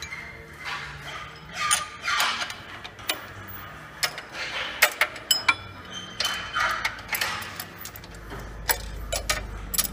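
Metal clicks and clinks from hand tools and steel fittings as the handle bolts on a steel sawmill carriage frame are worked, with short metallic rings and scraping handling sounds in between.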